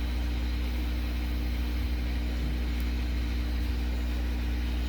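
Steady low hum with several constant tones and a faint hiss.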